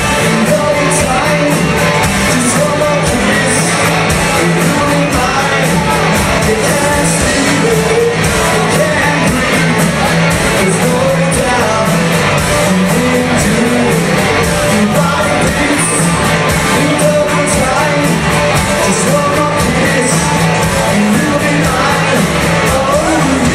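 A live covers band playing rock music with a singer, driven by a steady drum beat.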